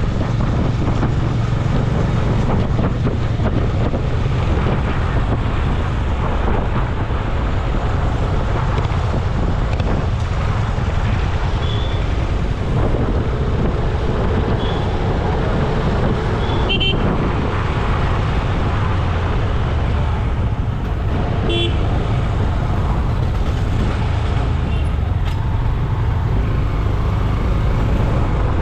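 Steady road traffic noise with vehicles passing, and short vehicle horn toots several times, the clearest two a few seconds apart past the middle.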